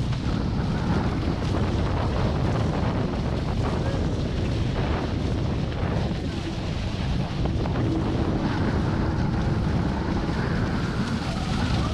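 Wind buffeting the microphone and water rushing and spraying along the hull of a Hobie 16 catamaran sailing at speed. A faint steady hum comes in during the second half.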